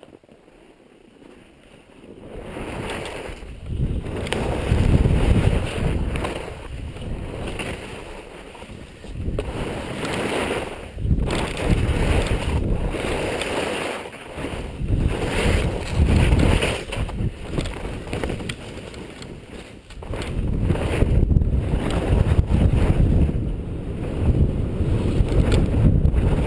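Wind buffeting the microphone of a ski-mounted action camera, mixed with skis scraping and hissing over packed snow on a downhill run. Quiet for about the first two seconds, then it builds and surges and eases again and again.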